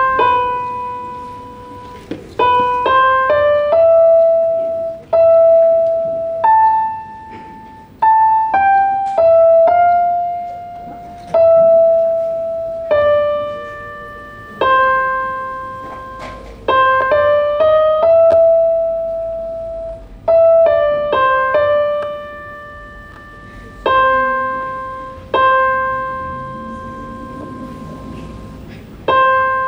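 Digital stage keyboard played with a piano sound: a slow solo melody of single notes, each struck and left to ring and fade before the next.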